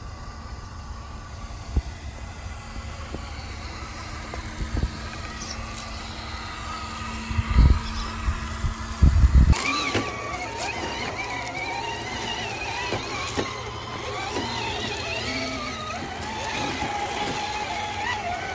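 Electric drivetrain of a Vanquish VS4-10 Origin RC crawler whining as it crawls, its pitch wavering up and down with the throttle. There are a few loud low thumps shortly before halfway, after which the whine grows stronger.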